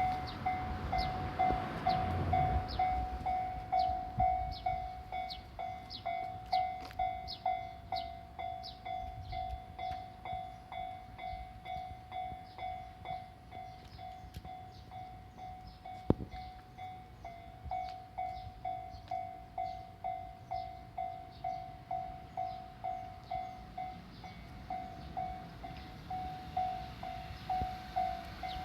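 Japanese railway level-crossing warning bell ringing, a steady repeating clang about twice a second, which signals that a train is approaching. There is a single sharp click about sixteen seconds in.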